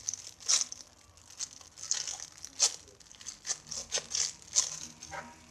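Plastic crinkling in irregular short crackles as a squishy toy is handled and squeezed.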